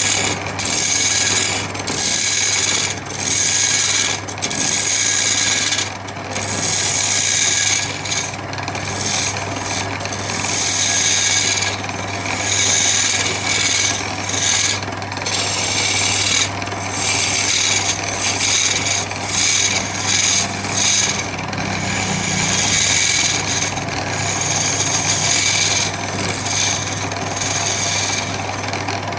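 Wood being abraded by hand in repeated rough strokes, about one stroke a second, each a harsh hiss with a short break between. A steady low hum runs underneath.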